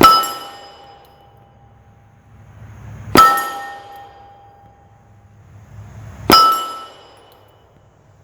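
Three 9mm pistol shots from a Palmetto State Armory Dagger Compact, about three seconds apart, firing subsonic 143-grain cast flat-nose handloads. Each shot is followed by a metallic ringing that fades over about a second.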